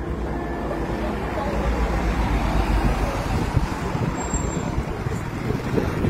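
Outdoor street ambience dominated by a steady low rumble of passing road traffic.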